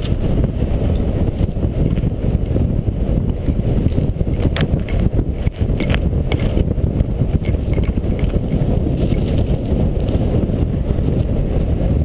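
Wind rushing over the microphone of a camera worn by a skier heading downhill on snow, with a few short clicks near the middle.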